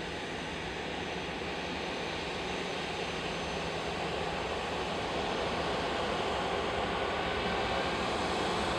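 Airliner engines running as the aircraft taxis, a steady rush that slowly grows louder, with a faint whine.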